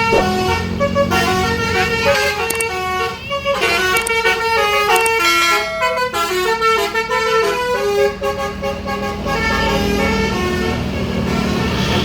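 Tour bus's Basuri telolet horn playing a quick melody of stepped, flute-like notes, over the low rumble of the bus engine.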